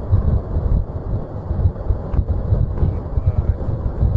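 Continuous low rumbling from explosions at a burning ammunition depot, with a couple of sharper cracks about two and three seconds in.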